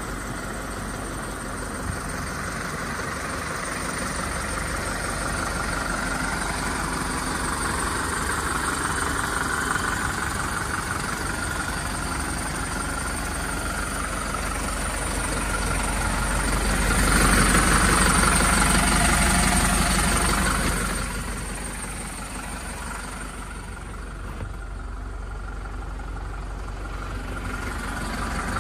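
MAN TGL 8.180 box truck's four-cylinder diesel engine idling steadily. It grows louder for a few seconds past the middle, then settles back.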